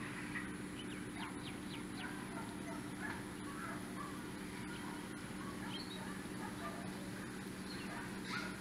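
Outdoor ambience with birds calling now and then in short, scattered calls, over a steady low hum and a constant thin high-pitched tone.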